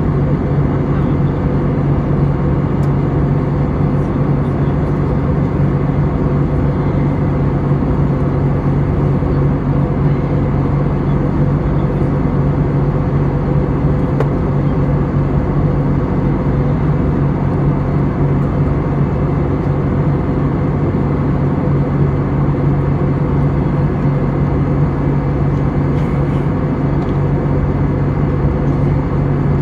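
Steady cabin noise of an Airbus A320neo in flight, heard from a seat beside the wing: the even rush of engines and airflow with a strong low hum that holds unchanged throughout.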